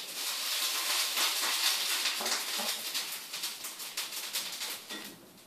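Metal fork scraping and clicking against a plastic bowl and a small paint jar while paint is scooped into a flour-and-water mix: a dense run of small scrapes and ticks that fades toward the end.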